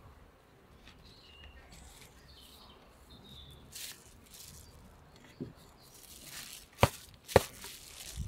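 Plastic rustling and small knocks as a bubble-foil insulation sheet is handled, with two sharp clicks about half a second apart near the end.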